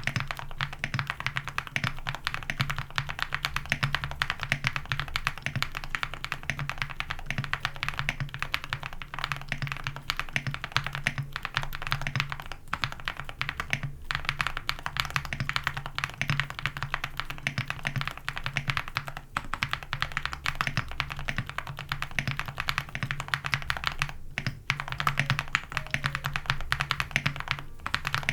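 Continuous fast typing on a mechanical keyboard with Gateron Moon Landing linear switches, full foam and PBT keycaps on an aluminium plate: dense, even keystroke clacks with a few brief pauses.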